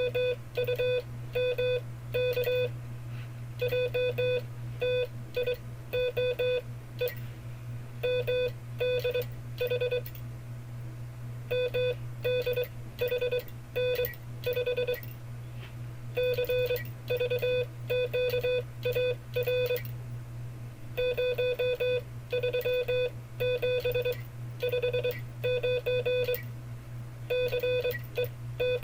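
Morse code being sent as five-character cipher groups: a buzzy mid-pitched tone keyed on and off in quick dits and dahs, in groups a few seconds long with short pauses between them, over a steady low hum.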